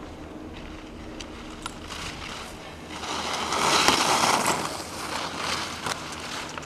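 Ski edges scraping and carving on hard-packed snow as a giant slalom skier passes close by: a hiss that swells about three seconds in, peaks around four seconds and fades, with a few faint clicks.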